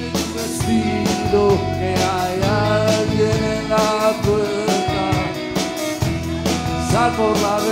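Live rock band playing: electric guitars and a drum kit with steady drum and cymbal hits, with a male voice singing over them from about two seconds in.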